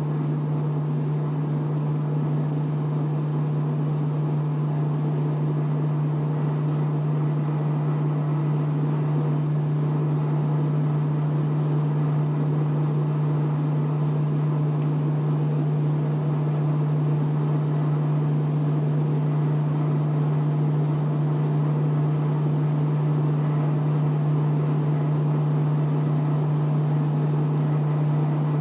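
Maytag clothes dryer running on high heat with a steady low drone and rumble from its failing drum rollers, growing slightly louder.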